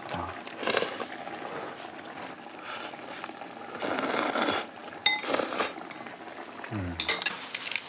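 People slurping hot noodles (kalguksu from a mushroom hot pot) in several wet, hissing slurps, the longest and loudest about four seconds in. A metal utensil clinks against a bowl about five seconds in.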